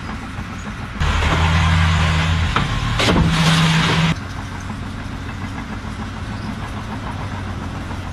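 A vehicle or machine engine running steadily, with two loud, abruptly starting and stopping blasts of a low, steady pitch: one about a second in lasting about a second and a half, and a shorter one about three seconds in.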